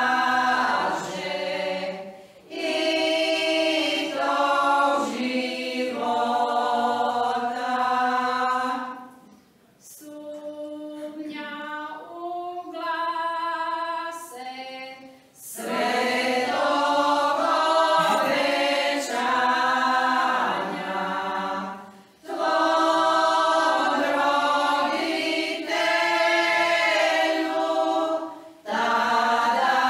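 Women's folk choir singing a church folk hymn a cappella, in phrases broken by short breathing pauses. About ten seconds in, fewer voices carry a phrase for a few seconds before the full group comes back in.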